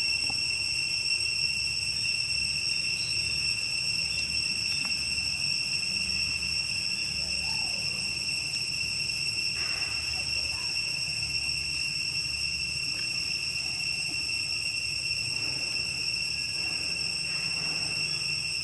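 Steady, high-pitched insect chorus ringing without a break, over a faint low rumble.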